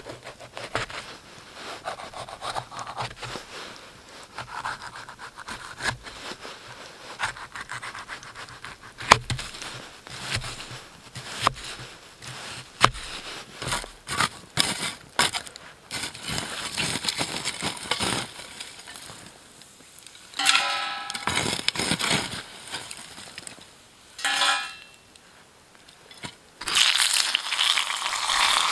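Camp-cooking handling sounds: a knife clicking and scraping through a crisp red bell pepper on a wooden board, and a metal folding shovel scraping through embers, with two short squeaky scrapes in the later part. Near the end a steady sizzle sets in as pepper slices fry in a hot cast-iron pan over a wood-burning camp stove.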